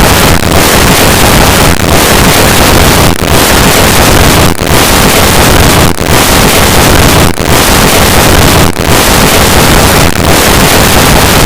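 Heat overload sound effect: a loud, steady rushing noise across all pitches. It dips briefly about every second and a half, like a pulsing alarm roar.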